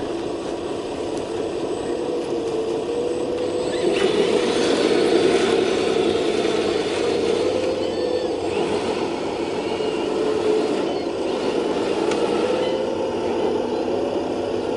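Radio-controlled construction model's electric drive whining as the model haul truck is driven, with a steady wavering tone that gets louder about four seconds in.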